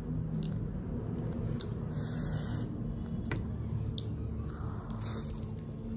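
Close-miked chewing and biting of a laccha paratha roll filled with chowmein: soft wet mouth sounds with scattered small clicks, and a short hiss about two seconds in. A low steady hum runs underneath.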